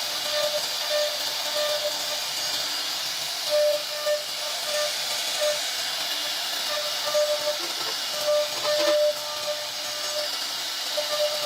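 CNC wood router at work: a steady hiss from the spindle cutting wood, with a whine that keeps starting and stopping as the machine makes short moves.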